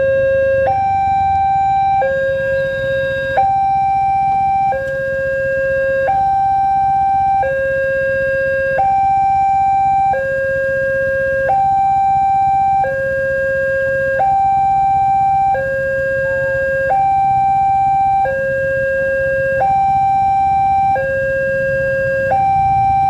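Railway level-crossing warning alarm sounding: an electronic two-tone hi-lo signal that alternates evenly between a higher and a lower tone, each held about a second and a third, repeating steadily. It warns that a train is approaching and the barriers are down; its tone is close to that of the newest Wantech crossing alarm.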